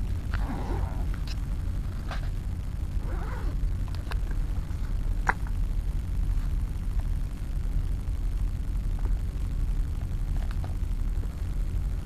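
Camera backpack being opened and handled: fabric rustling and a few sharp clicks and knocks of buckles and zips, mostly in the first half. Underneath is a steady low rumble of wind on the microphone.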